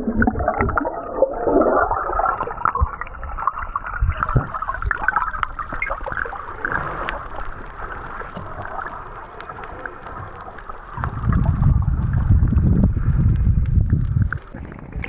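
Underwater sound picked up by a camera held below the surface: muffled bubbling and gurgling water with scattered small clicks. From about eleven seconds in, a loud low rumble lasts about three seconds.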